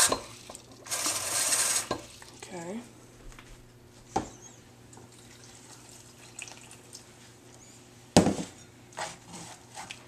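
Kitchen faucet running briefly about a second in, drawing water for the bait paste, with a short squeak after it. Quiet handling follows; then a sharp knock a little after 8 s and a spatula stirring and scraping a thick paste in a plastic tub.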